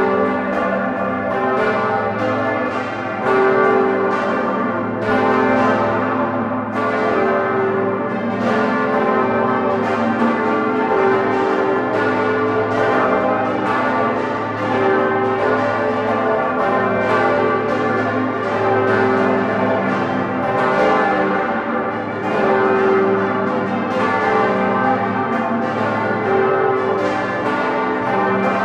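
Full peal of large Grassmayr-cast bronze church bells, the largest about six tonnes, ringing together in a continuous run of overlapping strokes. Heard close up from inside the bell tower.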